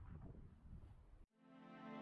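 Faint outdoor background noise cuts off abruptly about a second in. Soft background music then fades in as a sustained chord.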